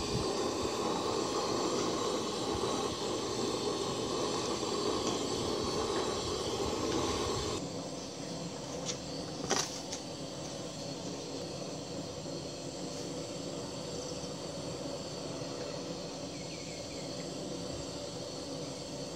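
Pot of rice gruel bubbling on its burner, a steady noisy hiss that stops abruptly about seven and a half seconds in. Under it and afterwards, insects chirr steadily, with one sharp tap about nine and a half seconds in.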